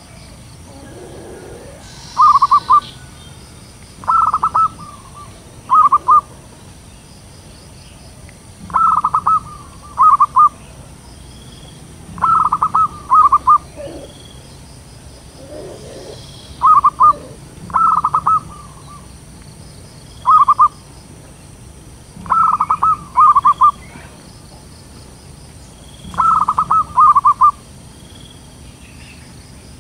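Zebra dove cooing: short phrases of rapid staccato coos, repeated every couple of seconds.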